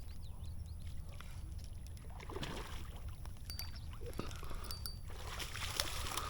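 Low steady rumble with a few faint knocks while a hooked Oscar fish is brought in on the line.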